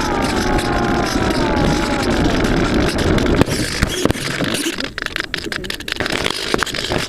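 A motor's whine gliding down in pitch, fading out about a second and a half in, followed by unsteady rushing noise broken by scattered clicks and knocks.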